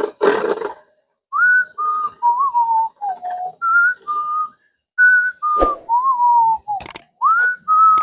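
A whistled tune: a melody of short, clear notes, some sliding up into pitch, with a sharp click about two-thirds of the way through.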